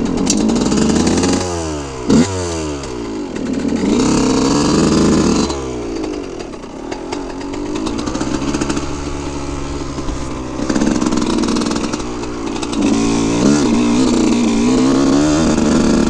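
2003 Yamaha YZ125's 125 cc single-cylinder two-stroke engine running hard as the bike is ridden around a motocross track, its pitch climbing and dropping again and again as the throttle opens and closes. It eases off for a while about six seconds in, then revs up again.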